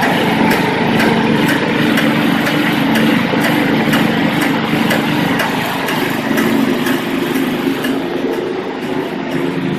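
Craftsman two-stage snowblower's 5 hp Tecumseh engine running steadily.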